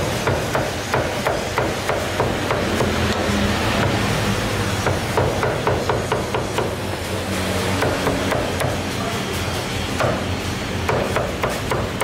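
Meat cleaver chopping cooked goat meat on a thick round wooden chopping block, in quick runs of sharp chops with short pauses between them. A steady low hum runs underneath.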